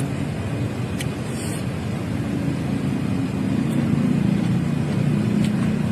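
A motor vehicle's engine running close by: a steady low drone that grows somewhat louder through the second half, with a couple of faint clicks.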